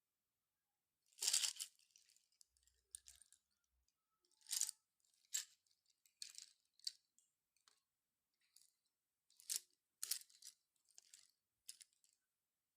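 Slate pencils crunching: about ten separate sharp, crackly crunches with short gaps between them, the loudest a little over a second in.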